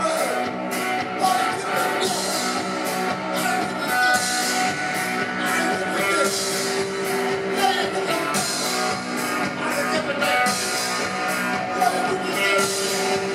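Live rock and roll band playing: a hollow-body guitar and a drum kit with cymbal and snare hits about twice a second, with a man singing.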